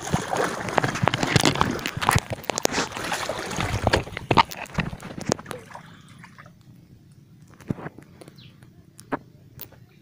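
Shallow seawater sloshing and splashing around the legs of someone wading. The splashing is heavy for about the first five seconds, then turns to quieter lapping with a few scattered drips and splashes.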